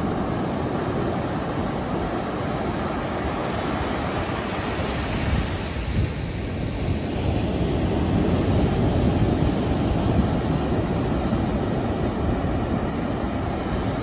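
Ocean surf: waves breaking and washing up a sandy beach in a steady rush, which thins briefly around the middle and then swells again.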